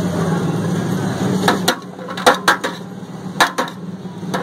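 A string of sharp metallic clacks from serving tongs against the steel chicken tray, starting about a second and a half in, over a steady low hum.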